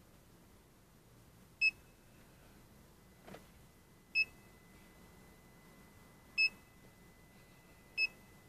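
Automotive diagnostic scan tool beeping at its button presses while clearing stored trouble codes: four short, high beeps a couple of seconds apart. A soft click comes about three seconds in, and a faint steady high whine starts at the same time.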